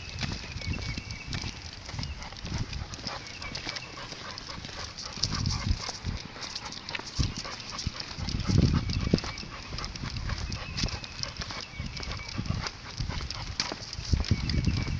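Footsteps of a person and a large dog walking on asphalt, with the dog's chain prong collar jingling. Irregular low rumbles come and go, the loudest about eight and a half seconds in.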